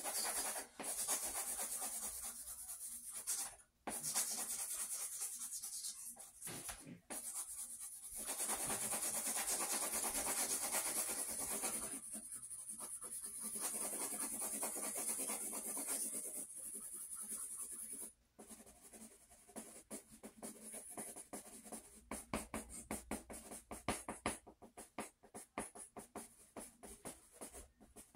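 Pencil scratching on drawing paper. First come long, continuous shading strokes with brief pauses; about two-thirds of the way in, these give way to rapid short hatching strokes, several a second.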